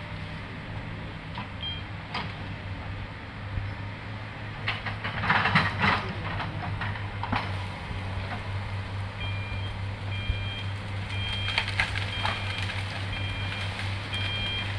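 SANY excavator's diesel engine running steadily, with a burst of crackling brush about five seconds in. From about nine seconds in, its travel alarm beeps evenly, about once every half second, the sign that the machine is moving on its tracks.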